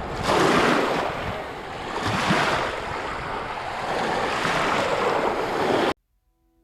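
Waves washing and breaking in swells, with wind rushing across the microphone. It cuts off suddenly near the end.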